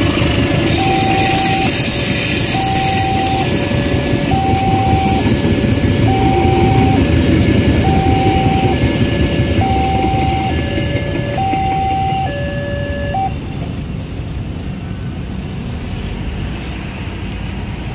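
Railway level-crossing warning alarm sounding a slow two-tone chime, a high note then a lower note, repeating about every two seconds over the rumble of passenger carriages passing. The alarm stops about 13 seconds in and the train noise fades to road traffic.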